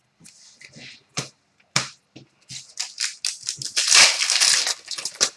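Foil trading-card pack wrapper being handled and torn open: two sharp crackles a second or so in, then a dense crinkling crackle for the last few seconds.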